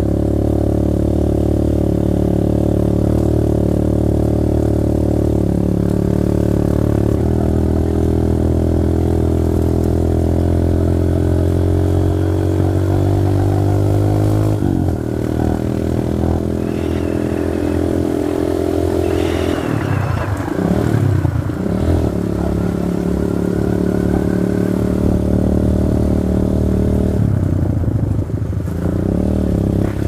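Motorcycle engine running steadily under way on a gravel road. About halfway through its pitch drops sharply, and a few seconds later it rises and falls before settling again.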